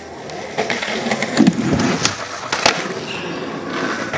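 Skateboard wheels rolling on rough asphalt, with a few sharp clacks and knocks of the board spread through.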